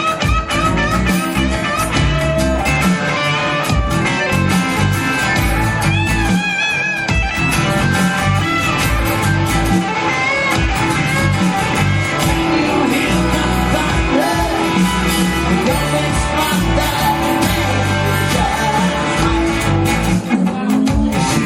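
Guitar-led song playing, with a steady bass line and a wavering melodic line, possibly a voice, above it.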